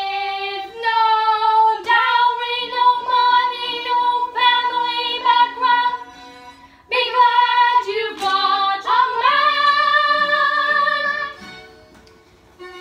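Girls singing a show tune in held, gliding notes. The singing ends on a long held note about a second before the end.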